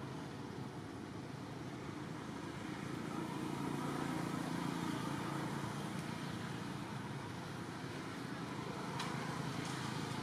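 Steady rumble of distant road traffic that swells for a couple of seconds in the middle, with a few faint ticks near the end.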